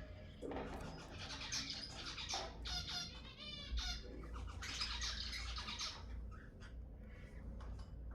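Zebra finches calling and singing: a busy run of short nasal, buzzy notes and trills that thins out to a few scattered calls after about six seconds.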